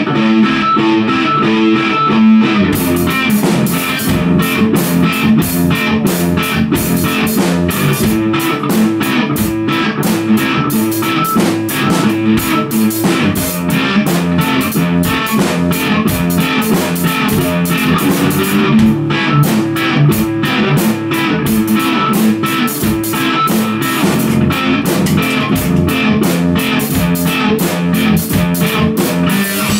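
Live rock jam: electric guitar played through an amp over a full drum kit, with steady drum strokes and cymbals coming in about two and a half seconds in.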